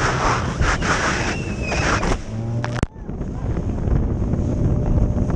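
Motorboat running at speed: a steady engine drone under heavy wind noise on the microphone and the sound of water and spray. About three seconds in the sound breaks off sharply for a moment, after which the wind and water noise takes over.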